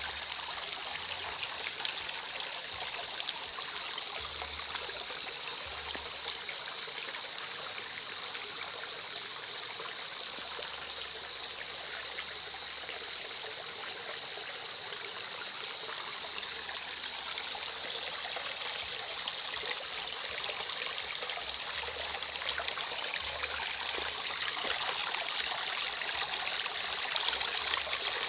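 Small creek flowing and trickling steadily, with a steady high-pitched tone running over the sound of the water.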